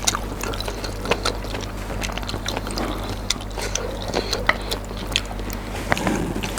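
Close-miked wet chewing of saucy spicy noodles: many small sticky mouth clicks and smacks over a steady low electrical hum.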